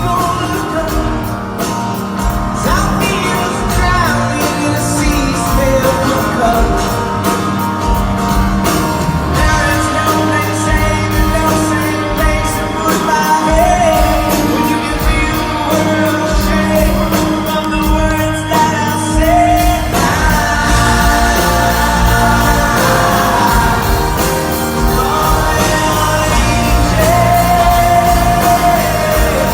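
Live pop-rock band playing a song with a lead singer, drums, bass and guitars, loud throughout; the band grows fuller about two-thirds of the way in.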